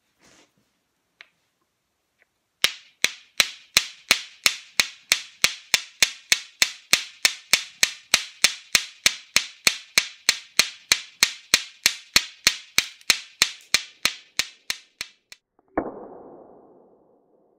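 Flint struck against a marcasite nodule to throw sparks for stone-age fire making: a steady run of sharp clicks, about three a second, some forty strikes in all. Near the end a single lower knock that rings on briefly.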